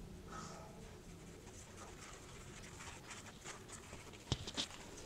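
Faint rustling of paper-thin cooked flatbread layers being peeled apart and lifted by hand, with a single soft click about four seconds in.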